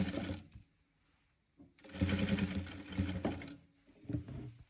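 Jack sewing machine stitching through thick plush fleece in two short runs: it stops about half a second in and starts again after a pause, running for nearly two seconds. A couple of faint knocks follow near the end.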